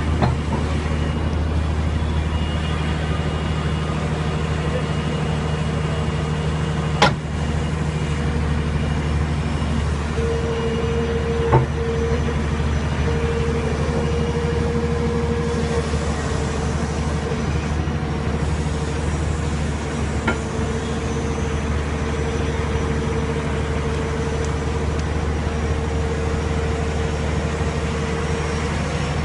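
Tata Hitachi excavator's diesel engine running steadily, with a higher steady tone joining about a third of the way in and three sharp knocks along the way.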